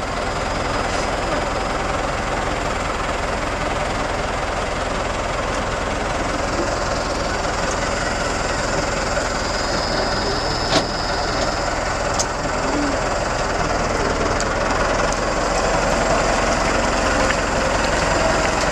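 Farm tractor engine running steadily close by, with a single sharp knock about eleven seconds in.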